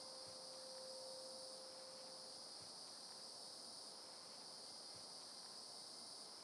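Faint, steady insect chorus with a continuous high chirring. A lingering musical note fades out in the first two seconds or so.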